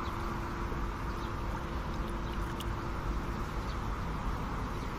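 Steady outdoor background noise with a low rumble and a faint steady hum that fades out a little past halfway.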